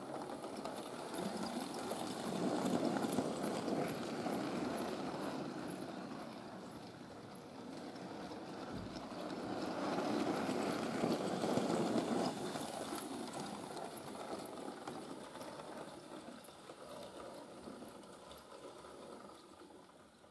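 OO gauge model trains running on track: a steady rumble of wheels and motors with light clicking, growing louder twice, about two seconds in and again about ten seconds in.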